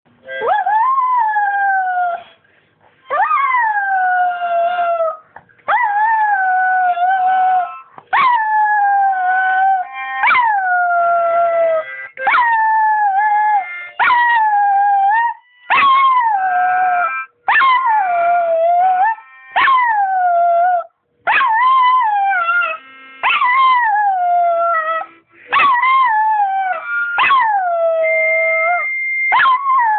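A chihuahua howling along to a harmonica, one howl after another, about fifteen in all. Each howl lasts about two seconds, jumps up in pitch at the start and slides down, with short breaks between. Faint, steady harmonica notes sound under and between the howls.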